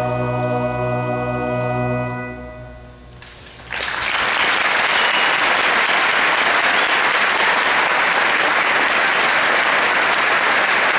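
A large choir with orchestra holds its final chord, which fades away about two to three seconds in. After a brief hush, loud audience applause breaks out suddenly and keeps going.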